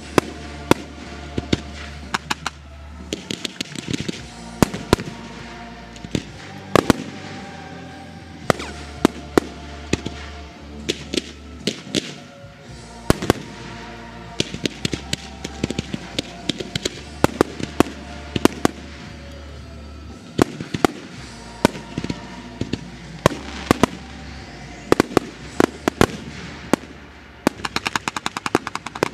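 Fireworks display: shells bursting in irregular sharp bangs, with a rapid string of bangs near the end. Music plays steadily underneath.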